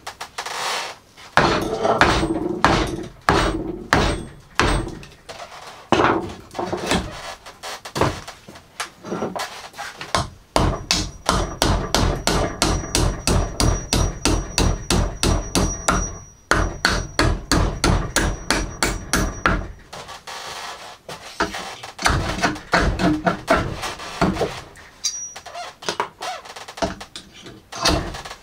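Hammer blows on wooden pallet boards, knocking the nails loose to take the pallets apart. The strikes come in separate groups, with a fast, even run of about three blows a second in the middle.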